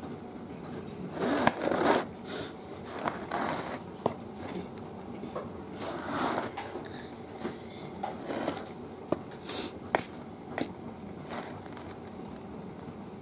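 Metal table knife spreading frosting over a cake: irregular scrapes and swishes of the blade through the frosting and against the plate, with a few sharp clicks of metal on the plate.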